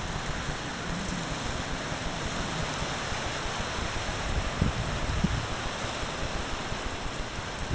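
Tropical-storm wind and rain: a steady rushing hiss with uneven low rumbling of wind on the microphone, and a stronger gust about four and a half seconds in.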